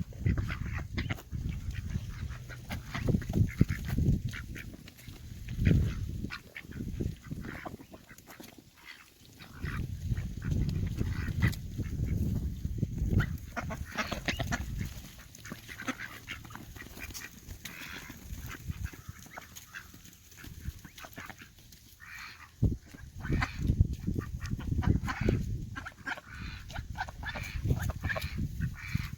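Mixed flock of domestic ducks quacking and honking, many at once, while scrambling to eat thawed peas, over irregular bursts of low rumble.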